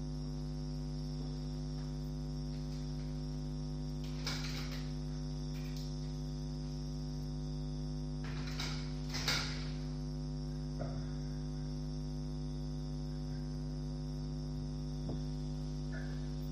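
Steady electrical mains hum with a stack of even overtones, broken by a few faint short noises about four seconds in and again around nine seconds in.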